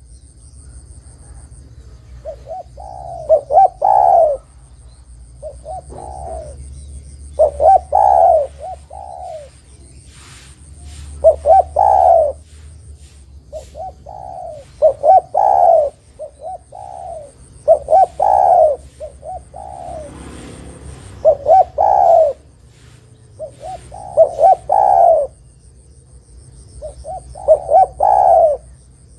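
Spotted dove (derkuku/tekukur) cooing: short phrases of a few low, hoarse notes, repeated about every two to three seconds, used as a lure call to draw other doves into answering.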